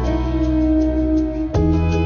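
Background music of held, sustained chords, changing to a new chord about one and a half seconds in.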